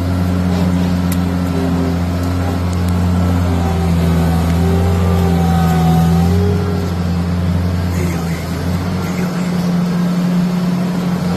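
Melroe Bobcat 642B skid steer's four-cylinder gasoline engine running steadily, its note changing about eight seconds in.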